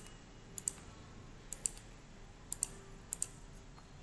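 Computer mouse clicking: four pairs of sharp clicks, about a second apart.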